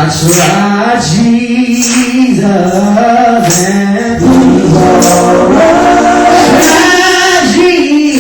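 Live gospel music: a singer holds long notes that step from pitch to pitch over the accompaniment.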